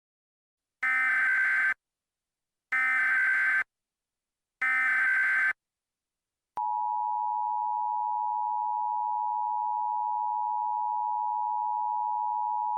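Emergency Alert System SAME header: three identical data bursts of about a second each, spaced about a second apart. About six and a half seconds in, the EAS two-tone attention signal begins, a steady dual tone that holds on unbroken, marking the start of an EAS activation.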